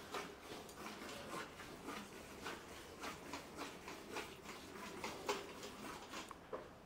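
Hand milking of a Gir cow: faint, rhythmic squirts of milk hissing into a steel bucket partly filled with frothy milk, about two to three squirts a second.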